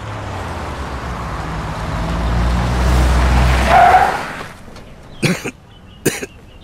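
Period car's engine running and driving, the engine and road noise building to a peak about three to four seconds in, with a brief squeal near the peak. It then falls away.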